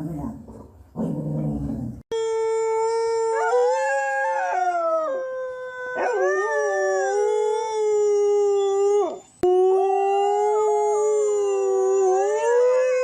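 A dog growls low for about two seconds, then howls: one long howl of about seven seconds that wavers up and down in pitch, cut off suddenly, followed at once by a second long howl.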